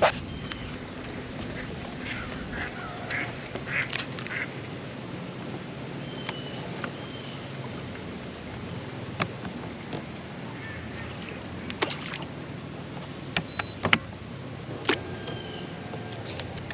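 Ducks quacking in a short run of calls a couple of seconds in, with a few fainter calls later. Underneath is a steady low hum, and there are several sharp clicks or knocks.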